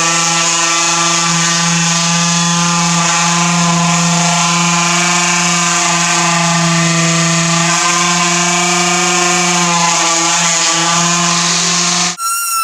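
Electric sander running steadily with a steady motor hum, held against the wooden form of a freshly poured concrete countertop so its vibration drives air bubbles out of the wet concrete. It cuts off just before the end.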